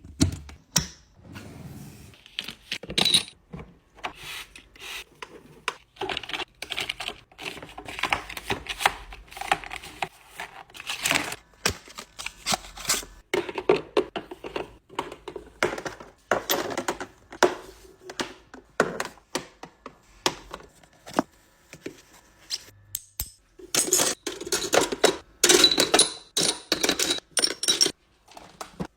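Skincare bottles, jars and tubes being handled and set down one after another while a mini fridge is restocked: a busy run of irregular taps, clicks and clacks, with brief rustles between them.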